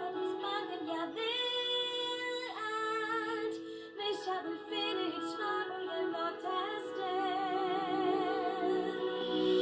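Female voice singing a Danish-language ballad over soft instrumental backing, played through a television's speakers. She holds a long note about a second in and sings a note with vibrato near the end.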